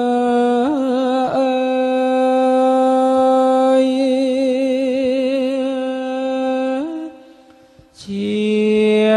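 A single voice singing Thai royal barge chant (kap he ruea), drawing out long held notes with a slow waver. One note is held for about six seconds and breaks off about seven seconds in. Another begins about a second later.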